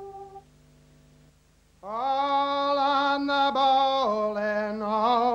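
A sustained ambient synthesizer chord ends, a second or so of near silence follows, then a single voice begins singing unaccompanied, sliding up into a slow melody of long held notes.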